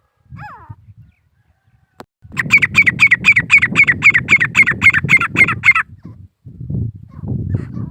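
Grey francolin calling: a single short call, then about two seconds in a loud, fast run of repeated ringing notes, about five a second for some three and a half seconds, followed by fainter calls near the end.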